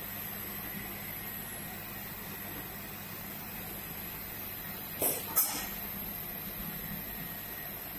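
Rotary silk screen printing machine running with a steady mechanical hum and a faint high whine, with two sharp clinks about five seconds in, a third of a second apart.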